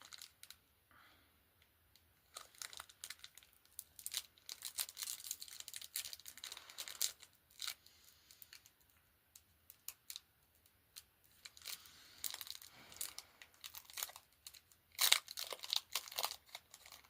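Foil wrapper of a Pokémon TCG booster pack being torn open and crinkled, in irregular bursts of crackling with brief pauses.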